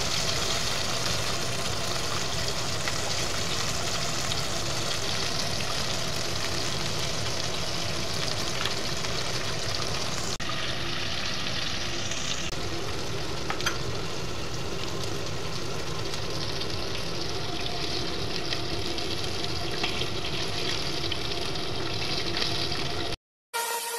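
Chicken pieces deep-frying in a pot of hot oil: a steady sizzle that cuts off suddenly near the end.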